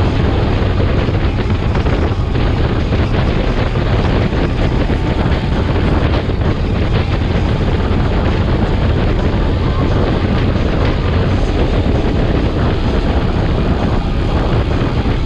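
Steady wind rush buffeting a camera microphone on a moving trike at road speed, mixed with road and motor noise.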